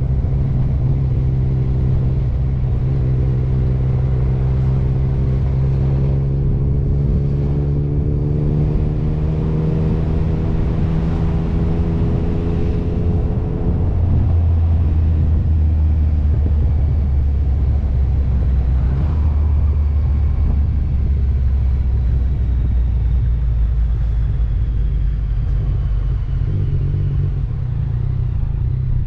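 Motorcycle engine running under way, heard from the bike's own mounted camera. Its pitch climbs slowly for about ten seconds, then drops to a lower, steady note about halfway through, as with a change of gear or throttle.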